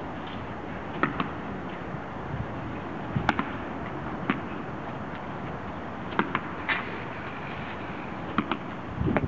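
Sharp cracks, often in close pairs, repeating every one to two seconds and echoing off the concrete of a pedestrian underpass, over a steady background hiss. The loudest single crack comes about three seconds in.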